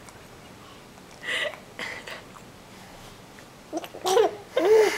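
A baby hiccupping: two short, sharp hiccups about a second and a half and two seconds in. Near the end comes a loud, high-pitched vocal sound whose pitch rises and falls.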